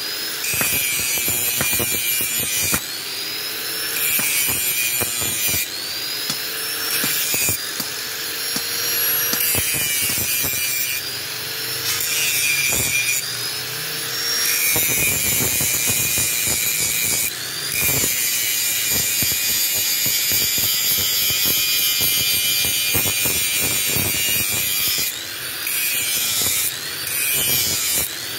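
Electric angle grinder with an abrasive disc grinding a steel badik blade forged from an old diesel-engine bearing. The disc is pressed to the steel and eased off again and again: a steady high grinding hiss, with the motor's pitch rising back up every few seconds as the load comes off.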